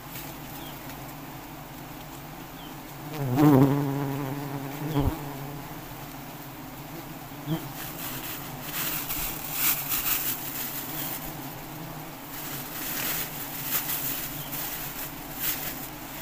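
A swarm of giant honeybees buzzing steadily around their open comb, with one bee passing close by for a loud, pitched buzz about three seconds in. Short scratchy rustles come and go in the second half.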